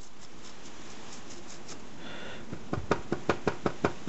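Quick run of light, sharp taps, about five a second, starting a little past halfway, over low room tone.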